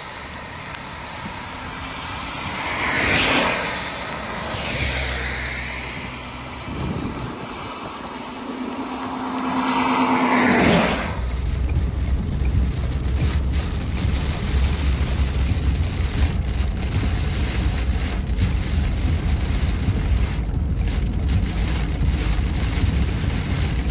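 Road vehicle noise: several cars swoosh past in the first ten seconds or so. Then a steady low road-and-wind rumble of a car driving at speed takes over.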